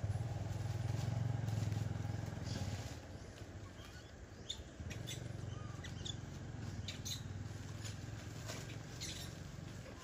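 An engine running with a steady low hum that falls away about three seconds in and comes back about two seconds later. Short high squeaks and ticks are scattered over it.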